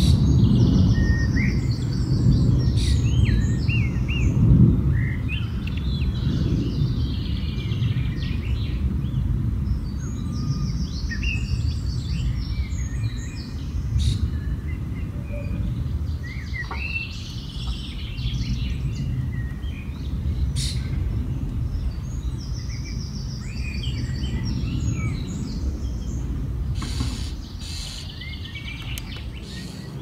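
Low, steady rumble of an airplane passing overhead, slowly fading and dropping off near the end. Songbirds sing repeated short phrases over it, with a few sharp clicks.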